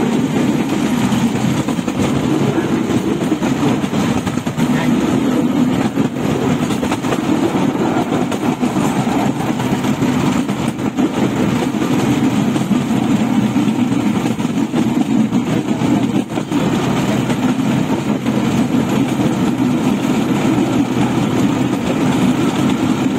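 Railway motor trolley running along the track: its engine and its steel wheels rolling on the rails make a steady noise with fine irregular ticks through it.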